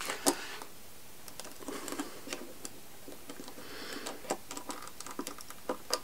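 Needle-nose pliers clicking and tapping against the small metal plate and tabs of a Ford brake light switch while the plate is pressed into place. Scattered light clicks, with a sharper click just after the start and a quick run of clicks near the end.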